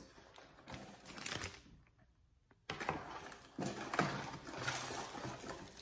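Clear plastic packaging rustling and crinkling as a cable is handled and unwrapped, in irregular stretches with a brief quiet pause about two seconds in.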